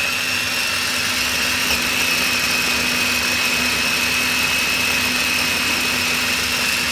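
Mitochiba CH100 electric food chopper running steadily, its motor giving an even, high whine as the blades churn a wet spice paste.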